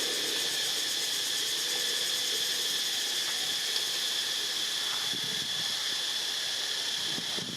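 Steady insect chorus, a constant high shrill drone that holds its pitch, with a few faint low rustles in the second half.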